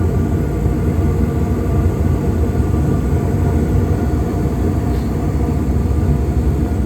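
Payne gas package unit running in heat after a gas valve replacement: a steady rumble of the firing burners and running fans, with a low hum.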